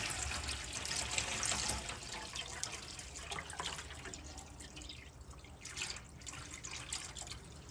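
Water poured from a bottle into a boat's galley sink, splashing and dripping into the basin. The pour is heaviest in the first couple of seconds, then thins to a trickle.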